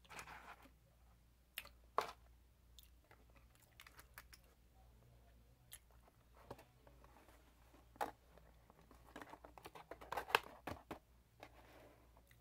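Chick-fil-A paperboard takeout boxes being handled and folded shut, with scattered clicks and taps of long fingernails on the cardboard, a few sharper knocks and light rustling.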